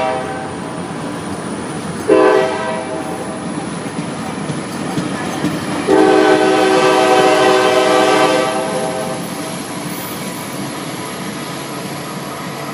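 Diesel locomotive air horn on a departing commuter train: the tail of one blast at the start, a short blast about two seconds in, and a long blast from about six to nine seconds, over the steady sound of the train pulling out.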